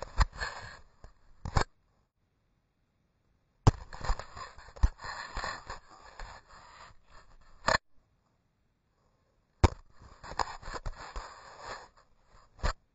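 Wind and handling noise on a handheld action camera's microphone as it is swung around, with rubbing and knocking against the hand. It comes in three stretches that start and stop abruptly with sharp clicks, separated by dead silence.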